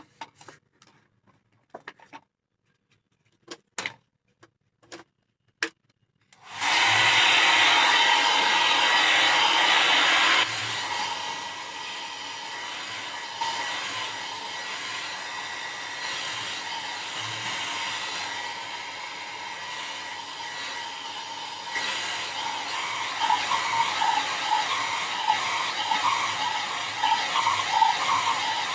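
A few light handling clicks, then a hair dryer switched on about six seconds in and running with a steady whir, dropping abruptly to a lower level about four seconds later. It is drying air-dry clay on a decorated glass bottle.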